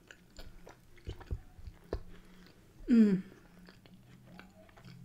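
A person chewing a soft mouthful of pie and mash with lips closed: quiet wet mouth noises and small clicks. About three seconds in comes a short voiced 'mmm' that falls in pitch, the loudest sound.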